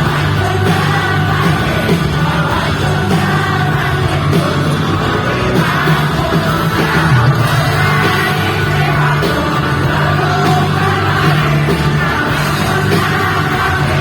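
Live pop-rock band playing loudly with singing, steady throughout.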